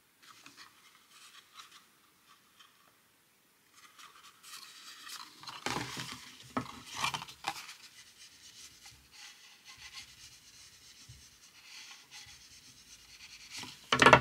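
Paper box being handled and pressed together by hand: the cardstock rustles and rubs as the glued flaps are pressed shut. There are a few soft knocks against the table in the middle and a louder one at the very end.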